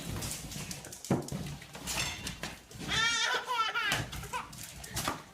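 An animal's call: one wavering, quavering cry about three seconds in, with a shorter call just before it.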